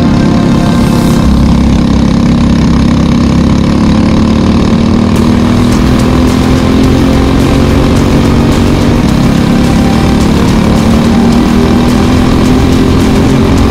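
Briggs & Stratton 206 kart engine, a single-cylinder four-stroke, running loud and steady, its pitch drifting slowly up and down.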